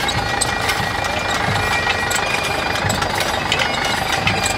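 International McCormick Super BWD-6 diesel tractor engine running steadily while it works a hay rick lifter, with the lifter's crank-driven rakes clattering as they carry hay up the elevator.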